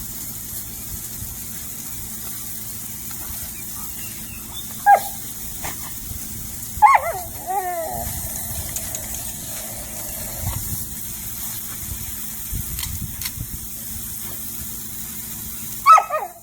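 A puppy barks sharply about five seconds in, then again about two seconds later in a bark that trails off into falling yelps, and once more near the end. Under the barks, a lawn sprinkler's spray hisses steadily.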